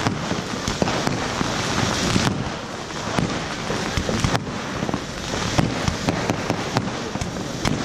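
Ground firework fountains spraying sparks: a continuous hissing rush dotted with many sharp crackles and pops.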